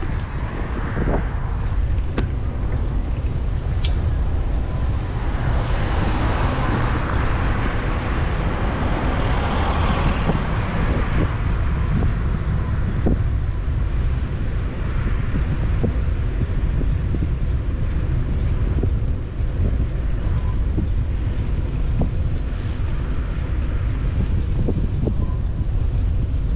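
Wind buffeting the microphone of a camera carried on a moving bicycle, a constant low rumble, with road traffic. A passing vehicle swells up about five seconds in and fades by about twelve seconds.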